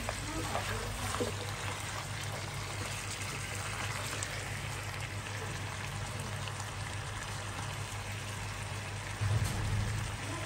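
Chicken frying in a pan: a steady sizzle over a steady low hum, with a brief low thump about nine seconds in.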